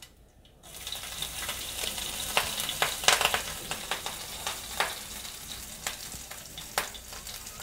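Tempering spices (mustard seeds, urad dal, green chilli and ginger) sizzling in hot oil in a small non-stick pan, with many sharp crackles over a steady hiss; the sizzle starts about half a second in.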